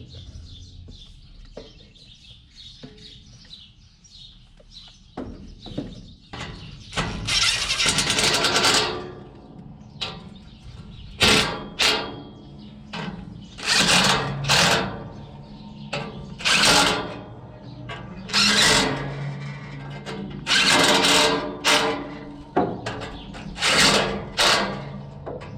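Impact wrench fired in repeated short bursts, about a dozen from about a quarter of the way in, one longer run first, then shorter ones, driving the bolts that hold the tine bands on a baler pickup.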